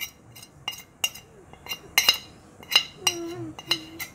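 Metal spoon clinking and scraping against a ceramic plate as spice powders are tapped off it into a steel bowl: about a dozen sharp, irregular clinks, each with a short ring.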